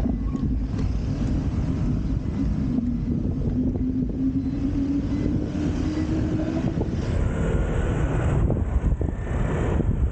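Wind rumbling on the microphone of a moving bicycle, over street traffic. A passing vehicle's engine drones for several seconds, its pitch slowly rising, and fades out about seven seconds in.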